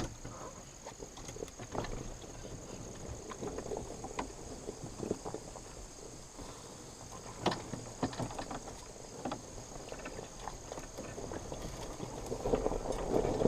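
Steady insect chirring in the background, with scattered light clicks, knocks and rustles of things being handled, growing busier near the end.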